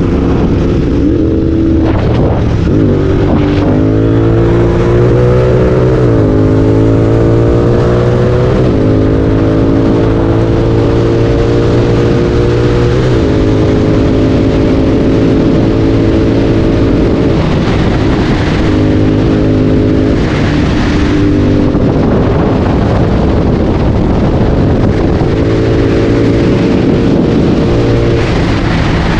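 Royal Enfield Continental GT 650's parallel-twin engine through a Red Rooster aftermarket exhaust, heard onboard while riding. In the first several seconds it pulls up through the gears, the pitch rising and dropping back at each upshift, then it holds a mostly steady cruise with a few more shifts and throttle changes.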